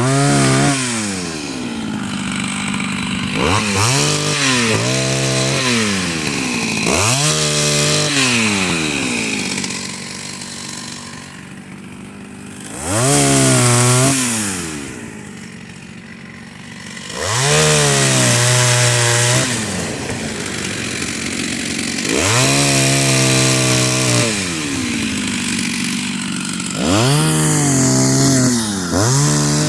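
Chainsaw cutting a fallen pine tree, revving up and dropping back to idle again and again, with several louder stretches of a second or two at full throttle as it bites into the wood.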